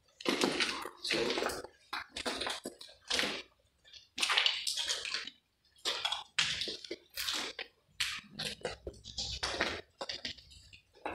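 Footsteps scuffing and crunching over a gritty, debris-strewn floor, about one step a second.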